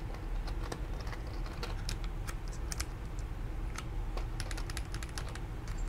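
Keys clacking on an Oasis65 mechanical keyboard built without foam, a quick, irregular run of sharp key clicks like typing.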